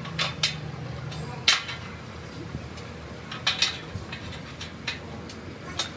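Loose steel mounting brackets and bolts clinking and knocking against a steel tractor wheel rim and its centre disc as they are set in place by hand: scattered sharp metal clanks, some in close pairs, the loudest about a second and a half in. A low hum underneath stops about a second and a half in.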